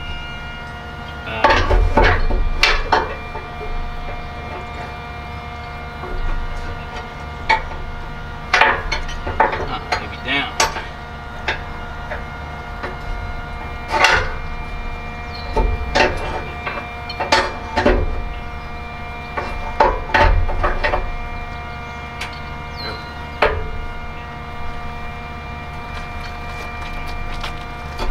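About twenty irregular knocks and clanks, some in quick clusters, as a flat metal bar for a bowsprit side chainplate is worked against a trailer to bend it.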